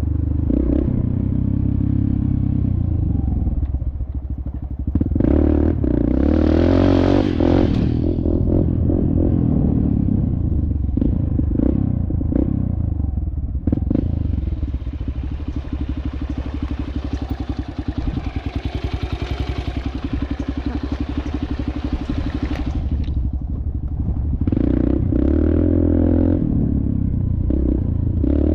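Dirt bike engine running hard under throttle, rising and falling in pitch as the rider pulls and eases off, with louder pulls about five seconds in and again near the end.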